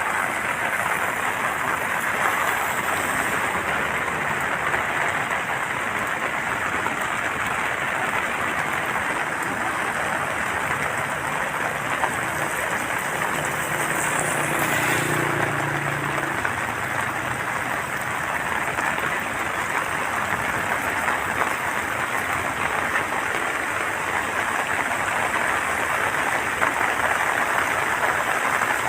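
Water rushing out through the open gates of a dam, a steady rush of noise at an even level. A faint low hum comes and goes about halfway through.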